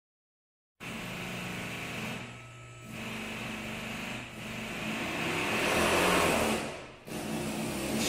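A small engine running, its level swelling to a peak about six seconds in and falling again, with a few short drops along the way.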